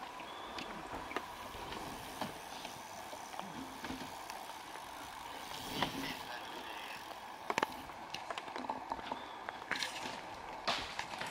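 Mountain bikes ridden past on the course: tyre and drivetrain noise with scattered rattling clicks from the bikes and a few sharper knocks.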